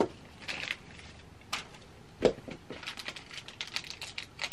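Plastic wrapping rustling and crinkling as it is pulled off a handbag, with scattered small clicks and one louder thump a little past halfway.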